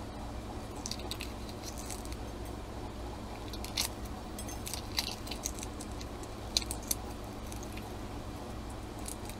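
Shell of a cooked, alkalized duck egg (century egg) being cracked and picked off by hand: scattered small, crisp clicks and crunches, about ten in all, over a steady low hum.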